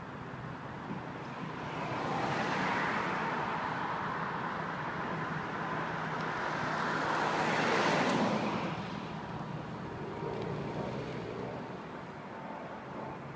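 SUV driving past at speed. Its engine and tyre noise swells once about two to three seconds in, builds to its loudest about eight seconds in as it goes by, then fades away.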